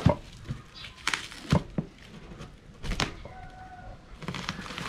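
Plastic stretch wrap around a boxed package being cut and pulled with a knife: plastic crinkling with several sharp snaps, the loudest at the very start and about one and a half seconds in.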